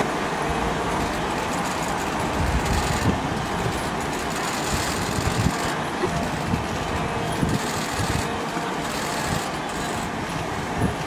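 Steady rushing and splashing of a wildebeest herd crossing a river, with irregular low thumps.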